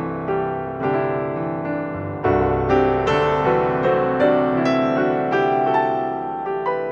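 Background piano music, with notes struck one after another and left to ring out.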